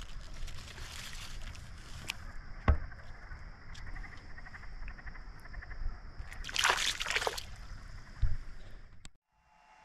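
Small boat on swamp water: water sloshing against the hull over a low rumble, with a steady high whine above it, a sharp knock a few seconds in, and a louder splashing rush about two-thirds through. The sound cuts off suddenly near the end.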